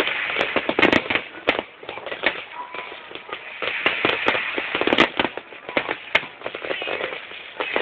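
Fireworks going off in a dense run of sharp pops and bangs with crackling, heaviest about a second in and again around four to five seconds in.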